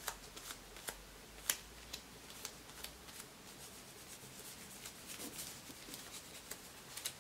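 A plastic nail-tip colour wheel and small plastic items being handled: faint scattered light clicks and rubbing, the sharpest click about a second and a half in.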